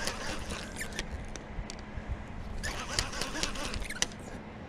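Fishing tackle rattling and clicking in two quick spells, the first right at the start and the second in the last couple of seconds, as a heavy channel catfish is fought on rod and reel. A low steady hum runs underneath.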